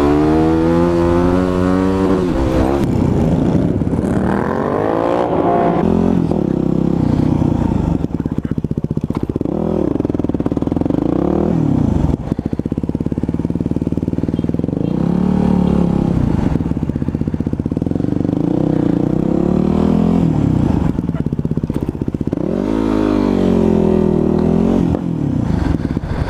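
Dirt bike engine heard from the rider's seat, revving up and easing off over and over as it rides, the pitch climbing and falling every few seconds.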